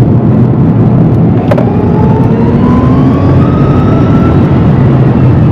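Rimac Nevera's electric motors under a hard full-power pull: a thin whine rising steadily in pitch over heavy tyre and road rumble inside the cabin, easing off near the end. A single click about a second and a half in.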